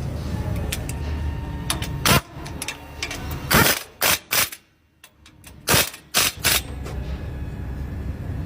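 Car in motion with a steady low rumble, broken about two seconds in by a run of about seven loud, short knocks or thumps, some in quick pairs; the sound nearly drops out for a moment in the middle.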